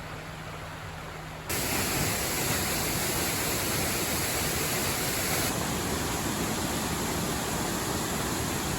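Steady rushing roar of falling water from a waterfall. It jumps abruptly louder about a second and a half in, then holds steady.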